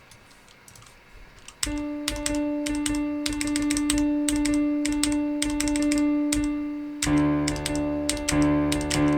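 Computer keyboard keys clicking and clattering as they play a virtual piano program, whose piano notes sound together with the clicks. About one and a half seconds in, a held note comes in, and about seven seconds in a fuller chord joins it.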